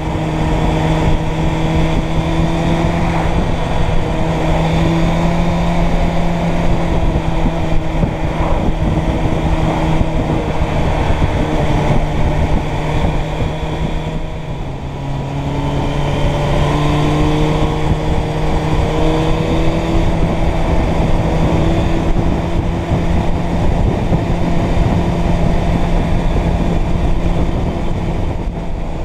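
Suzuki Bandit 600's inline-four engine running steadily on the move, heard from the rider's seat with wind rushing over the microphone. About halfway through, the engine note drops briefly and then climbs again.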